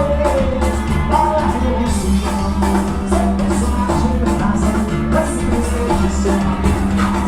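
Live band playing upbeat Brazilian party music, with singing over a steady bass line and driving drums and percussion.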